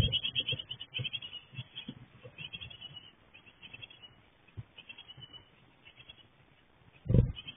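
Japanese tit (shijūkara) nestlings giving rapid, high-pitched begging calls inside a wooden nest box as a parent arrives; the calls are densest in the first three seconds and then thin out. Short low thumps break in, the loudest near the end.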